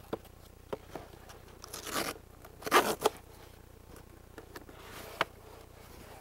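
Cardboard shipping box being torn open along its edge, with two tearing sounds about two and three seconds in, and scattered taps and clicks of the box being handled.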